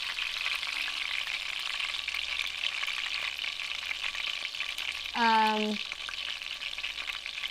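Chapli kababs shallow-frying in oil, a steady sizzle. About five seconds in there is one short voiced sound with a falling pitch.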